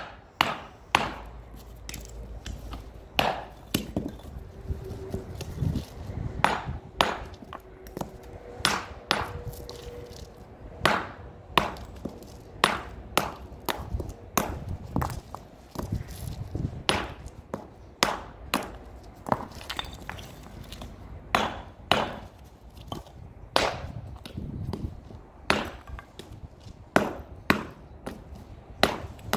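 A hand hammer strikes andesite stone, splitting slabs into small paving cubes (cobblestones). It gives sharp, ringing cracks at an uneven pace of roughly one blow a second.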